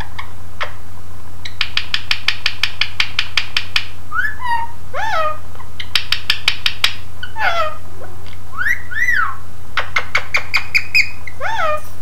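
Indian ringneck parakeet making short arching, swooping whistled chirps, alternating with runs of quick kissing smacks at about six a second.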